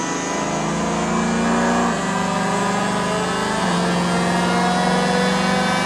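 Ford Mustang's engine and exhaust under hard throttle on a chassis dyno, pitch climbing steadily, dropping abruptly twice, about two seconds in and again past three and a half seconds, then climbing again.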